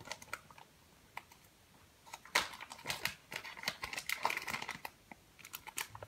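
Clear plastic bag crinkling and crackling as it is handled and opened, a run of sharp little clicks and rustles, sparse at first and busiest from about two seconds in.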